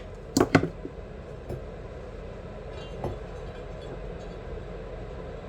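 Two sharp knocks close together about half a second in and a lighter knock about three seconds in, made by parts or tools being handled during a differential rebuild, over a steady low background hum.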